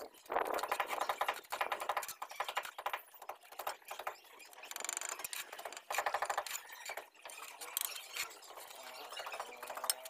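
Mason's trowel scraping and scooping mortar and working it against hollow ceramic bricks, in several short rasping bouts.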